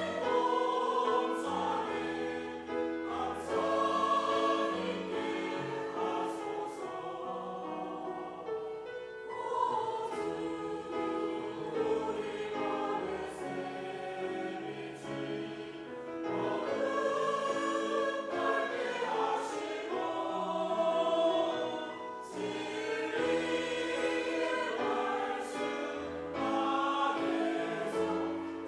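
Church choir singing a hymn in several-part harmony, with long held notes that swell and fade.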